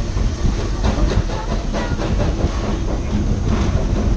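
Narrow-gauge train running, heard from an open passenger car: a steady rumble of wheels on the rails with irregular clacking and knocks.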